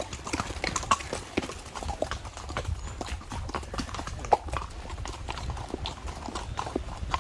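Horses' hooves clip-clopping on a trail: a run of irregular hoof strikes, one louder than the rest about four seconds in.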